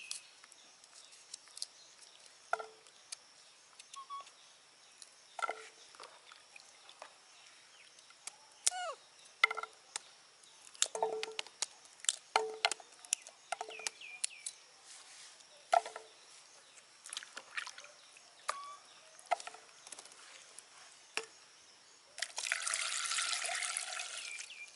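Light clicks and taps from a kitchen knife slicing pieces of yellow produce against the thumb, with the pieces dropping into an aluminium pot. About 22 s in, water is poured from a plastic dipper into the pot for a little over two seconds, the loudest sound.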